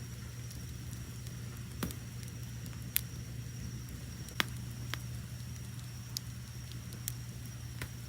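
Wood fire crackling, with about half a dozen sharp pops (the loudest about three and four and a half seconds in) over a low steady rumble. Crickets keep up a steady high chirping trill behind it.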